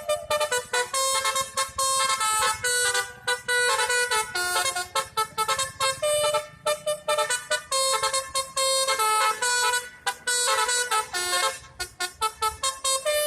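Basuri 'telolet' multi-tone bus air horn playing a quick melody of short, pitched toots. It repeats the tune over and over, with brief pauses between phrases.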